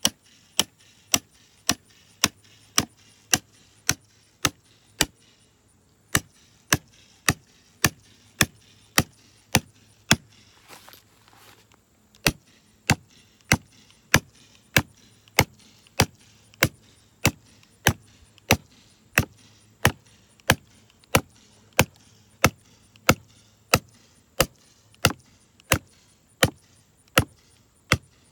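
Small sledgehammer striking the top of a steel pipe in a steady run of sharp metal-on-metal blows, about two a second, driving a homemade steel cable earth anchor into the soil. The blows stop for a second or two about a third of the way through, then resume at the same pace.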